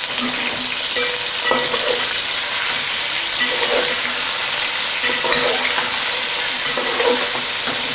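Bone-in beef pieces with ginger-garlic paste sizzling in hot oil in a cooking pot, being stirred: a steady loud sizzle with repeated scraping strokes of the spoon against the pot.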